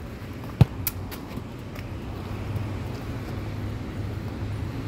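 Steady low outdoor background hum of distant road traffic, with one sharp click a little over half a second in and a few fainter ticks just after.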